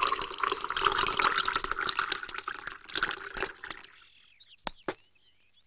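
A hot drink poured in a stream into a ceramic cup, a steady splashing pour that fades out after about four seconds. Two short knocks follow near the end.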